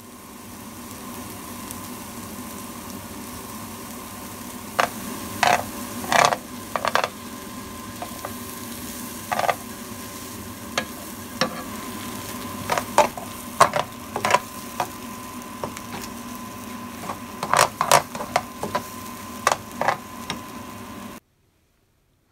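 Diced onions sizzling in a nonstick grill pan, with sharp scrapes and taps of a utensil stirring them now and then. The sizzle cuts off suddenly near the end.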